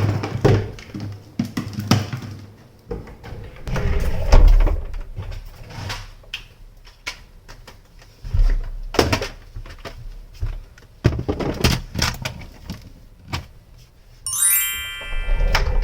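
Irregular knocks, thuds and clicks of objects being handled and bumped. Near the end comes a short electronic chime of several high tones.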